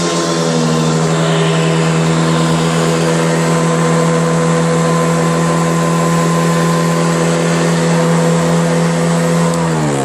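Hoover heavy-duty commercial upright vacuum cleaner's motor running with a steady high whine. Near the end it is switched off, and the whine falls in pitch as the motor spins down.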